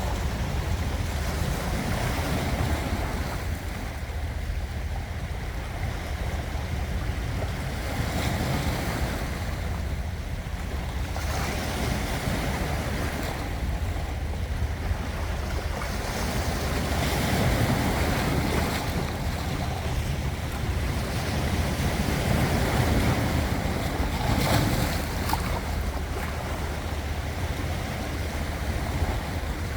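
Ocean waves breaking and washing on the shore, the surf swelling and easing every few seconds, with a steady low rumble of wind on the microphone.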